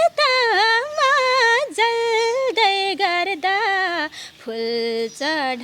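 A woman singing a Nepali song unaccompanied, drawing each syllable out in long, wavering, ornamented runs, with short breaks for breath between phrases.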